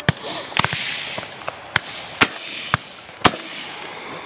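Shotgun shots popping around the field, about seven in four seconds: two loud close reports, about two seconds in and again a second later, with fainter distant shots in between.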